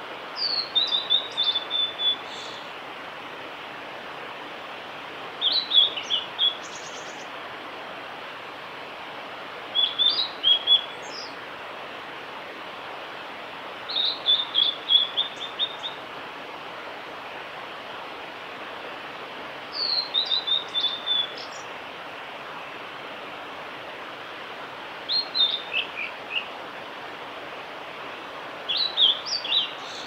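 Male blue-and-white flycatcher singing: seven short phrases of high whistled notes, many sliding down in pitch, each one to two seconds long and repeated every four to five seconds, over a steady background hiss.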